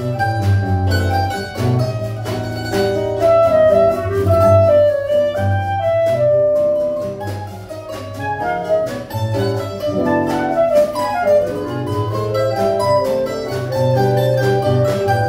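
A choro ensemble playing: a clarinet carries the melody over a bandolim and acoustic guitar, with a steady walking bass line on the guitar.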